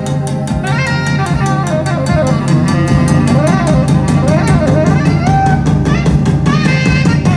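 Band music: a drum kit keeps a fast, steady beat under guitar and a lead melody that bends in pitch.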